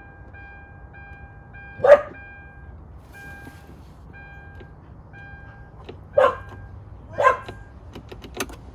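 A car's warning chime beeping over and over, about two beeps a second, then stopping about five seconds in. A dog barks three times, sharp single barks, and a few quick clicks come near the end.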